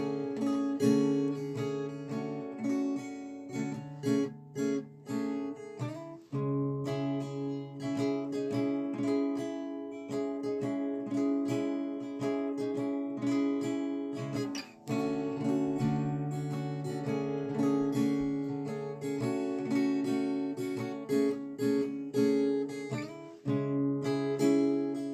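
Background music: an acoustic guitar strumming chords steadily.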